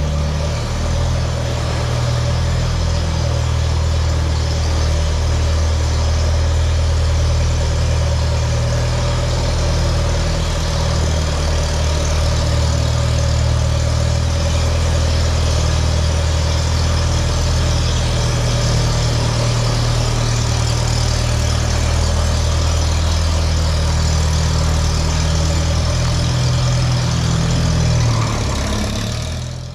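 Allis-Chalmers Model D road grader's engine idling steadily; the sound fades away near the end.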